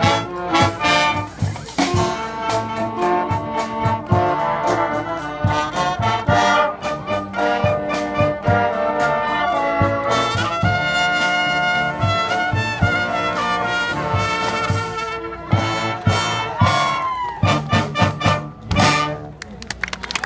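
Marching band playing a brass and woodwind piece with percussion: saxophones, clarinets and trumpets over a steady beat. In the last few seconds it plays a series of accented hits, and the music stops just before the end.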